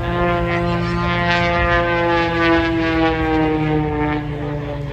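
Propeller airplane flying past, its engine and propeller drone a dense pitched tone that slides slowly down in pitch as it goes by.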